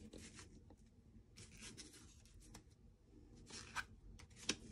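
Pokémon trading cards being slid and set down on a playmat: faint, scattered brushing and tapping strokes.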